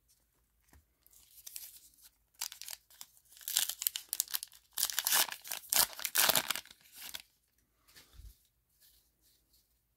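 Baseball card pack wrapper torn open by hand, crinkling and ripping in a run of crackles that builds over several seconds and is loudest midway, then stops. A few faint rustles follow near the end as the cards are handled.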